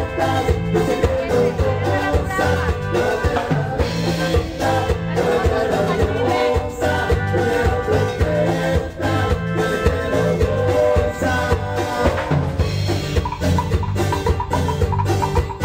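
Band music from a medley, a mostly instrumental passage: drum kit and bass keep a steady beat under sustained melodic lines.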